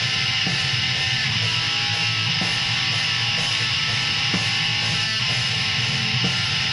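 Black metal demo recording: distorted electric guitars in a dense, steady wall of sound, with a sharper stroke about every two seconds and no vocals.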